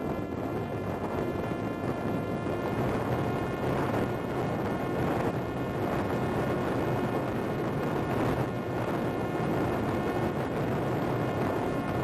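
Parrot Disco fixed-wing drone's electric pusher motor and propeller whining at a steady pitch under heavy wind rush in fast flight.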